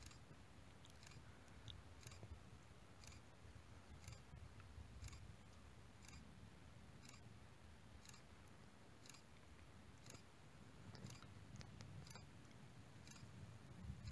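Near silence: distant thunder rumbling faintly and low, swelling slightly near the end, with faint ticks about twice a second.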